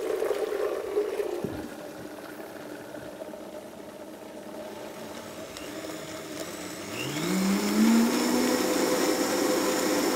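Vitamix blender: a steady hum cuts off about a second and a half in, then about seven seconds in the motor starts, rising in pitch as it spins up, and runs on steadily, blending a cashew cream sauce.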